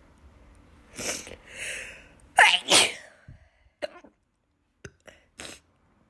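A woman sneezing: short breathy intakes build up to a loud sneeze about two and a half seconds in. A few short, sharp hiccups follow near the end.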